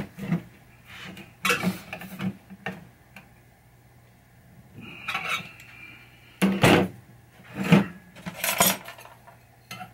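Loose metal parts of a pinball chime box clinking and clattering as they are handled and set down, in about seven separate knocks, with a short ringing tone about five seconds in.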